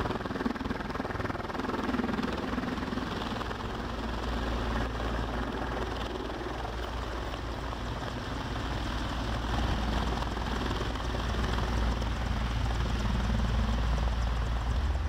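Military helicopter in flight, its rotor and turbine engines making a steady low rumble that grows a little louder in the last few seconds.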